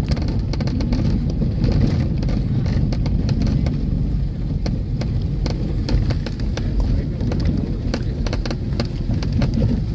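Car driving over a rough unpaved dirt and gravel road, heard from inside the cabin: a steady low rumble of tyres and suspension with frequent clicks and rattles from stones and bumps.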